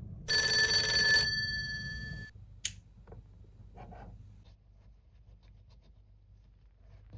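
An alarm bell rings with a steady, bright tone for about two seconds and then stops. A single sharp click follows, then a few faint small taps.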